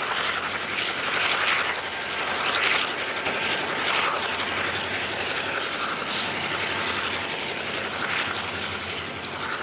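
Railroad rotary snowplow running as it cuts through deep snow, its spinning rotor throwing snow out in a plume. A steady rushing noise that swells and eases every second or two.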